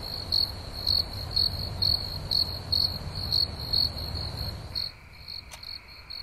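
Crickets chirping in a steady rhythm, about two chirps a second, over a low rumble that drops away near the end.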